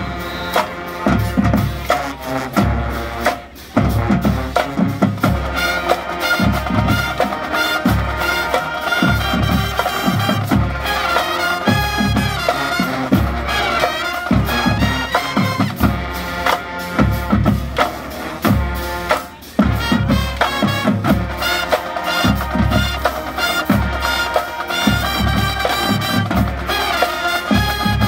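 High school marching band playing a stand tune: brass with sousaphones over heavy, steady drumline hits on the beat. The band cuts off briefly twice, about three and a half seconds in and again around nineteen seconds, then comes straight back in.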